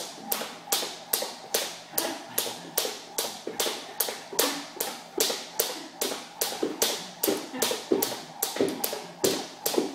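A steady beat of sharp claps or taps, about three a second, keeping an even tempo throughout, with quieter sounds in between.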